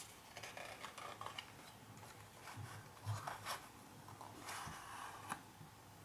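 Faint rustling of a cardboard box and a stack of trading cards being handled, with scattered light clicks and taps, a few a little louder about three seconds in and past five seconds.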